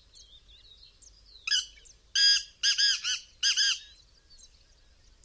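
Black francolin calling: one loud note about a second and a half in, then a quick phrase of several loud, rasping notes lasting about a second and a half. Faint chirps of small birds go on around it.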